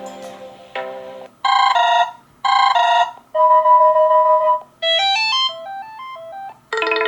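Fairphone 3 ringtones previewed one after another: several short electronic melodies, each cut off abruptly before the next begins. They include a repeated two-burst chime, a held two-note tone and a rising stepped run of notes.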